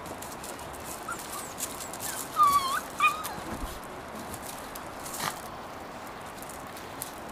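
Belgian Malinois puppies yelping during rough play: two short high yelps in quick succession, the first rising in pitch at its end.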